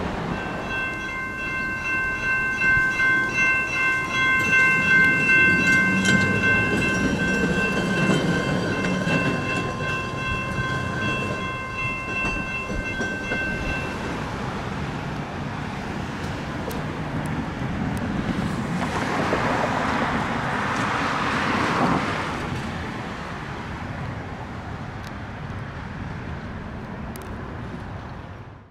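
A horn sounds one long, steady chord for about thirteen seconds and then stops, over a low rumble; a broad rushing sound swells and fades around twenty seconds in.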